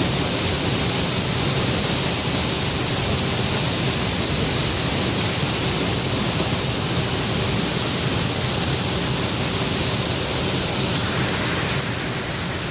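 John Deere 9550 combine running while harvesting corn: a steady, dense rush of machine and crop noise with a faint low hum underneath.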